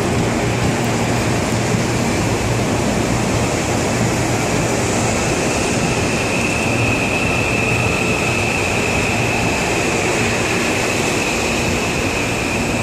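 CPTM série 7000 electric multiple unit pulling away along the track: a steady rolling noise with a low hum, and a steady high whine that grows louder about halfway through.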